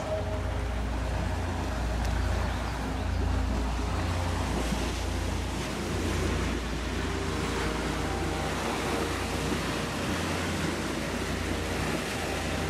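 Wake waves from a passing river barge washing against the riverbank, with wind rumbling on the microphone. A faint steady engine hum from the barge runs underneath.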